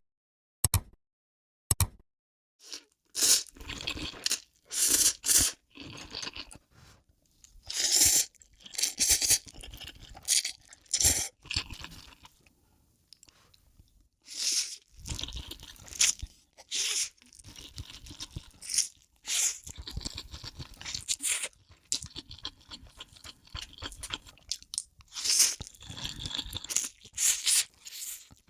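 Close-miked eating of noodles: irregular bites, crunching and chewing with short pauses. A few short sharp clicks come in the first two seconds.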